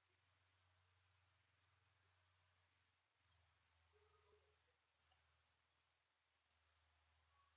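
Near silence, with very faint, evenly spaced high clicks, a little over one a second, over a low steady hum.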